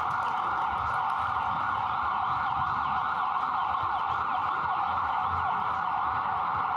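Emergency vehicle siren sounding continuously over low street rumble, its pitch sweeping rapidly within a narrow mid-range band without a break.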